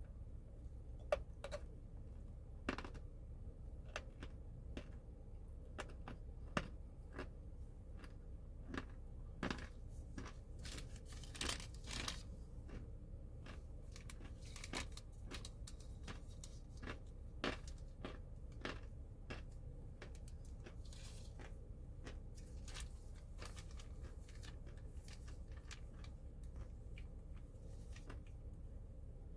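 Crunchy food being bitten and chewed close to the microphone: irregular crunches and crackles, some sharp and louder, coming thickest about ten to twelve seconds in.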